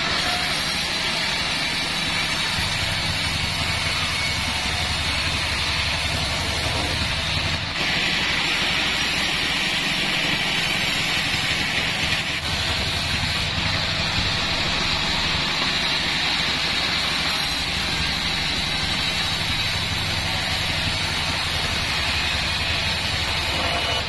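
Band sawmill running and cutting a mahogany log: a steady rushing of the blade through the wood over a low motor hum. The sound shifts abruptly about 8 and 12 seconds in.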